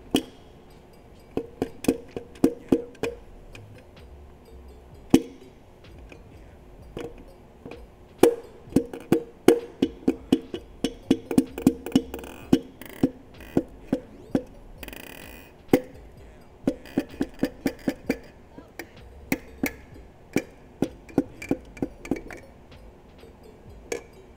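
Repeated sharp hammer taps, mostly in quick runs with a short ring after each, as the pistons and connecting rods of a Mopar Hellephant V8 are driven down and out of the cylinder bores.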